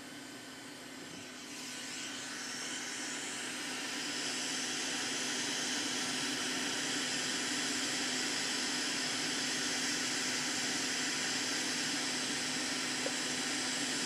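Hot-air rework station blowing hot air onto a circuit-board MOSFET to reflow its solder: a steady rushing hiss that builds over the first few seconds and then holds, with a faint low hum underneath.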